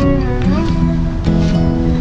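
Background music led by plucked acoustic guitar, with a note that slides upward about half a second in.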